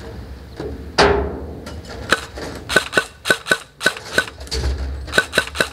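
Airsoft gun firing single shots in quick succession, about three a second: a string of sharp snaps from about two seconds in, a short pause, then three more near the end. About a second in there is one louder sharp crack with a falling ring after it.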